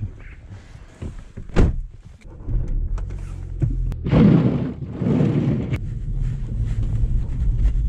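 A car door shuts with a single thunk, then a Volkswagen's engine runs, heard from inside the cabin as a steady low rumble with two louder rushing surges in the middle.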